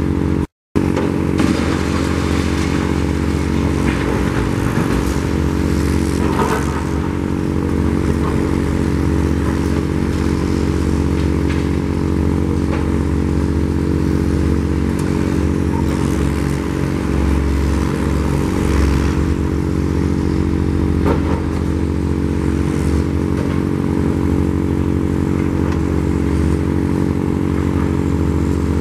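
Heavy diesel engine of a demolition crawler crane running steadily, with now and then a clatter of breaking concrete and debris.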